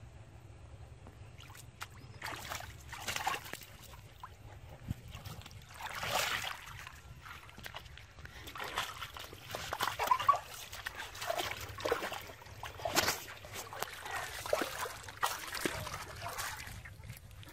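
Bare feet wading and stirring through shallow muddy water: irregular splashing and sloshing that starts about two seconds in, with a few louder splashes.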